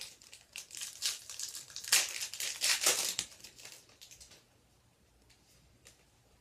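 Wrapper of a Score hockey card pack crinkling as it is torn open and handled. It is loudest about two to three seconds in and dies away a little after four seconds.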